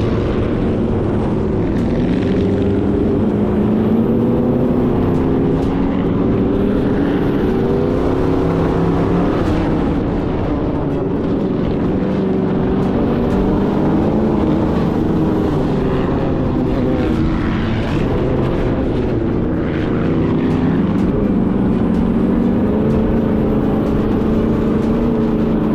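Sand rail engine running at speed, its pitch rising and falling repeatedly.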